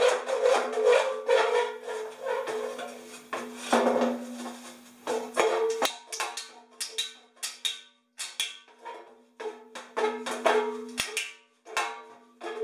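Stainless steel exhaust pipe knocking and scraping against a large lorry silencer as they are handled, giving many irregular clanks over a steady metallic ringing from the silencer body.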